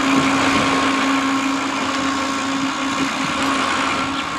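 A steady motor hum with a held tone, over water rushing and splashing along the side of the boat.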